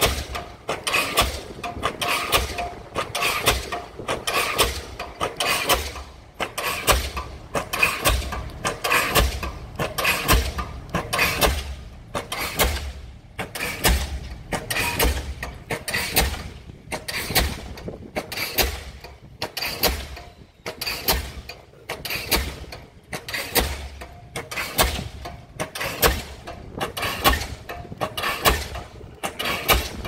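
Diesel pile hammer driving a concrete spun pile: a steady train of sharp blows, a little more than one a second.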